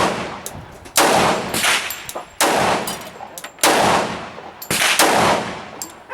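Gen 2 Glock 23 pistol in .40 S&W firing four shots, a little over a second apart, each followed by a long echoing tail.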